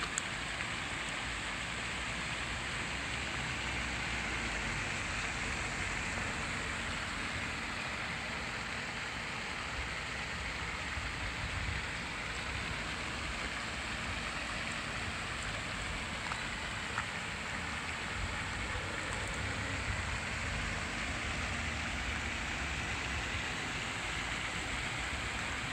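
Steady rain-like splashing of a pond fountain's falling spray, an even hiss that holds level throughout.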